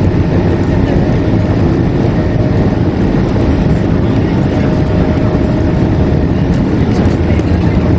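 Airbus A220-300's geared turbofan engines running, heard inside the cabin as a steady, even rumble with a faint steady whine that comes in about two seconds in.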